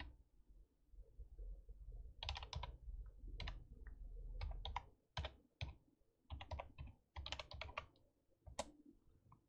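Faint typing on a computer keyboard: keystrokes come in short runs of a few clicks each, separated by brief pauses.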